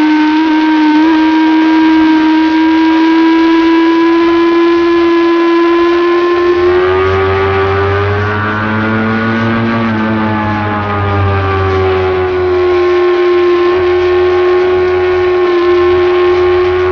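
Motorcycle engine running hard at high revs under steady throttle through a corner. Its note holds nearly level, wavers and climbs a little about halfway through, then settles slightly higher.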